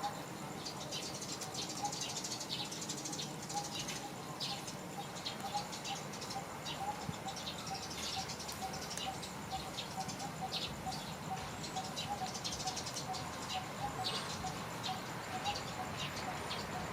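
Birds chirping in short, high, irregular calls, over a steady, fast pulsing call of about five notes a second.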